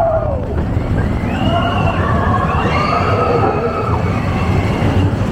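Roller-coaster riders screaming and whooping, several voices at once with long wavering, sliding cries, over the steady rush of wind and the rumble of the Expedition Everest coaster train.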